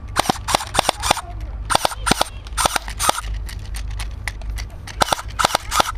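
Airsoft gun firing about fifteen sharp snapping shots in quick runs, then a pause of about two seconds before a last few shots near the end.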